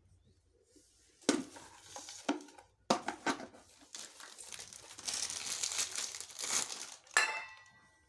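A stainless-steel electric kettle being handled, with rustling and a few knocks, then a sharp metallic clink that rings briefly about seven seconds in as it is set down.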